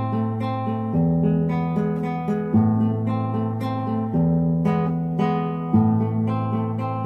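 Background outro music on acoustic guitar: plucked notes in a repeating pattern, with the chord changing about every second and a half.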